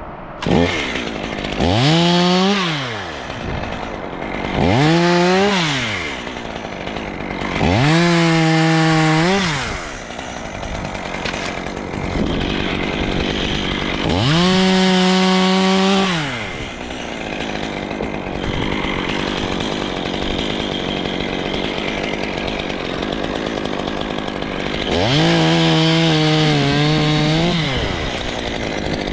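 Stihl MS 500i fuel-injected two-stroke chainsaw revved to full throttle in five bursts of one to two seconds each, dropping back to idle between them. The held high note sags a little in pitch partway through the last burst.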